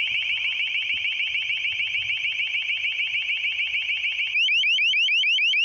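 A Long Range Acoustic Device (LRAD) sounding its ear-splitting deterrent tone: a loud, high-pitched, rapid warble of rising sweeps, which slows to distinct rising chirps about four seconds in.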